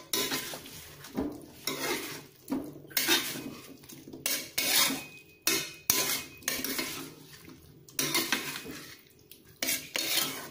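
A spatula scraping and clattering against a pan as tofu, eggs and green beans in a thick, reduced soy sauce are stirred, in repeated strokes about once a second with a short pause in the middle.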